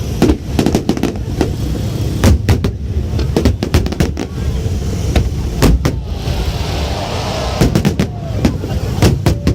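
Fireworks going off in an irregular string of sharp bangs, about two a second, over a steady low rumble.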